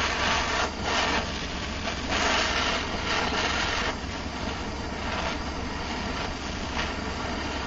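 Gas torch flame hissing steadily while heating the spine of a forged steel knife blade for differential tempering. It swells and eases a few times in the first three seconds, then runs steadier.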